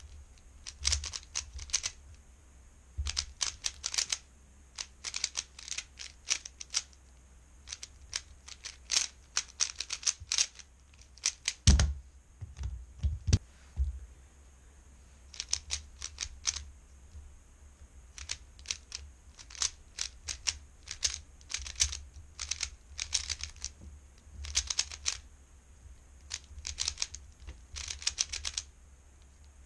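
3x3 speedcube clicking and clacking in rapid bursts of turns as it is solved, with short pauses between bursts. A few dull thumps come around the midpoint, where one solve ends and the next begins.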